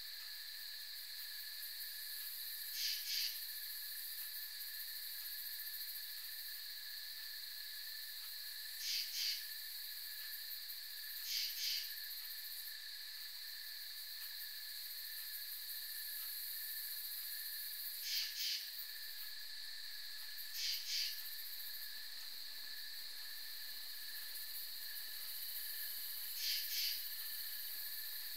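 Night insect chorus: a steady, high-pitched shrill of crickets and katydids, with a short two-part rasping call repeating every few seconds, seven times in all.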